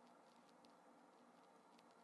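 Near silence: faint steady hiss with a few faint, scattered ticks.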